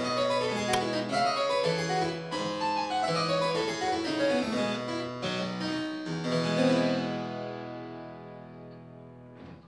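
Outro music: a solo keyboard piece, probably harpsichord, playing quick runs of notes and fading out over the last few seconds.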